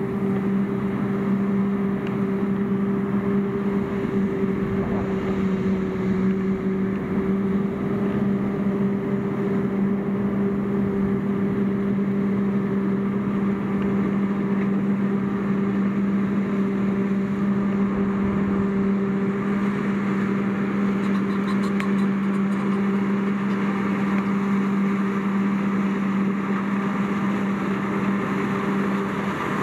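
Forage harvester chopping maize while a tractor keeps pace alongside, both running steadily: a constant machine drone with a strong, even hum.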